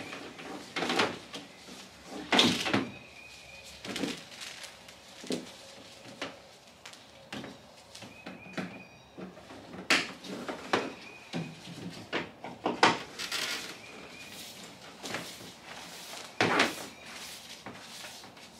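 Irregular knocks, clicks and plastic clatter of a commercial dehumidifier being set up by hand, its cord and hose handled against the unit's housing. A faint short high tone recurs every few seconds.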